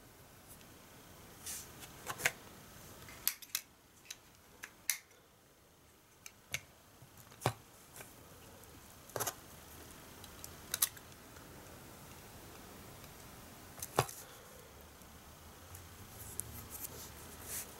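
Small sharp clicks and taps of plastic and metal parts being handled while a Nikon Coolpix S7000 compact digital camera is taken apart: about a dozen at uneven intervals over low room noise.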